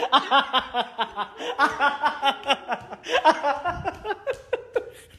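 Hearty laughter: rapid runs of ha-ha pulses, about five or six a second, in three bouts that die away near the end.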